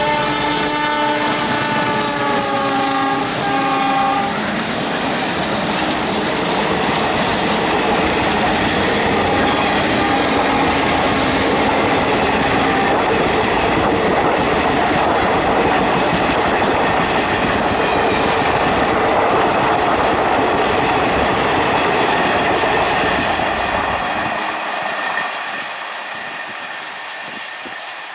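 An Alco WDM-3A diesel locomotive sounds its horn for about four seconds, and the pitch drops partway through. A passenger train's coaches then roll past on the rails in a steady, loud clatter, which falls away near the end as the train goes by.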